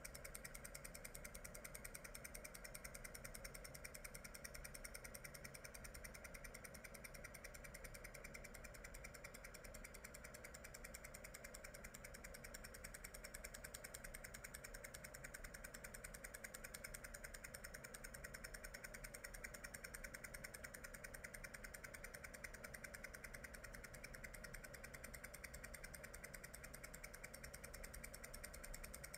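Faint, steady engine hum that does not change.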